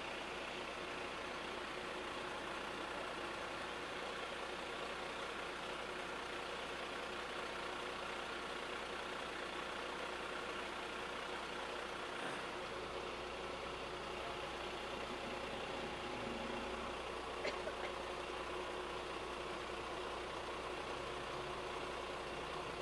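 Steady mechanical hum holding several fixed tones, with a couple of faint clicks about seventeen and a half seconds in.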